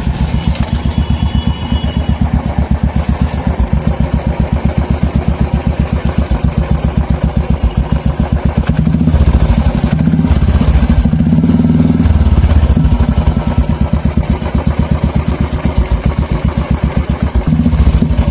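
Royal Enfield Classic 350 single-cylinder engine idling with a steady beat. It runs louder for a few seconds in the middle and again briefly near the end. A tik-tik ticking comes from the engine, which the mechanic says can come from a broken decompressor spring, play in the timing pinion, or failing hydraulic tappets.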